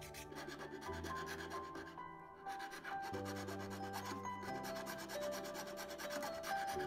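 A needle file rasping back and forth over a knife handle made of hardened 3D-pen plastic, over background music with held notes and a bass line.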